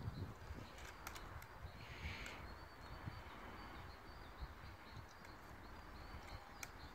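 Quiet outdoor ambience with a few faint clicks, about a second in and again near the end.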